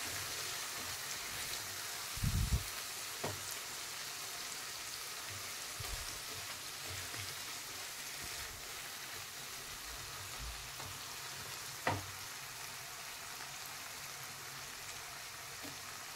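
Fenugreek leaves and spice masala frying in oil in a kadhai, with a steady sizzle as a silicone spatula stirs them. The water has cooked off and the oil has separated, so the mixture is frying rather than simmering. A few soft knocks come about two, three and twelve seconds in.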